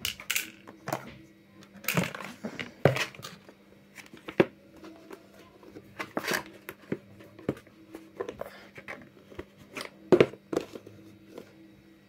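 Irregular clicks, knocks and rustling as a foldable mini washing machine's collapsible plastic tub is handled and pulled open from its folded state, the sharpest knocks about four and ten seconds in. A faint steady hum runs underneath.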